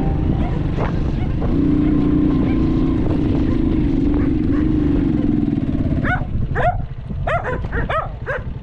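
Small 125cc motorbike engine running as it rides along, its note wavering. About six seconds in, a dog starts barking in a quick run of barks over the engine.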